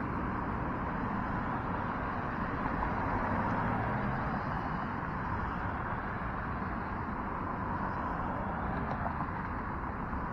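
Steady wind and road rumble from a bicycle ride: a low rushing noise with no distinct events.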